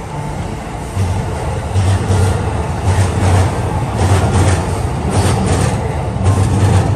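Loud traffic rumble beneath a steel elevated railway viaduct, growing louder about a second in, with a low thud repeating about twice a second.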